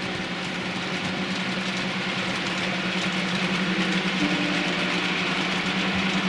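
Model trains running on a layout: a steady electric motor hum with an even whirr.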